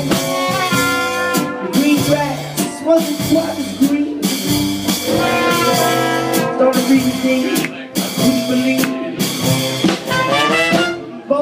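Live roots band playing an instrumental break: trumpet and trombone play the melody together over acoustic guitar, upright bass and drum kit.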